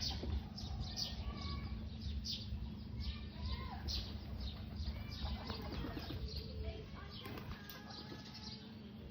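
Birds chirping: many short, high chirps, several a second, with a few brief lower whistled calls, over a steady low rumble.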